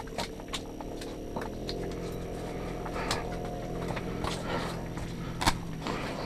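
Freshly caught whitefish flopping on the ice, giving irregular slaps and knocks, over a steady low hum.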